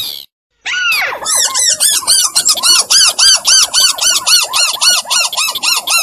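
Recorded rail or crake call played as a bird lure: a brief call, then after a short pause a fast, even chatter of arched notes, about four a second.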